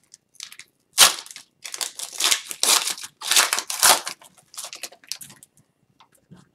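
Plastic wrapper of a hockey card pack being torn open and crinkled by hand, in a string of sharp crinkly rips, the loudest about a second in and about four seconds in. Softer rustles follow as the cards are slid out of the wrapper.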